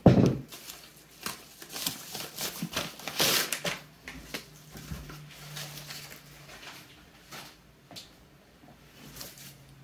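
Mail packaging being handled: a thump as a padded envelope is set down, then rustling and scraping of a cardboard book mailer being picked up and turned over, with scattered light taps.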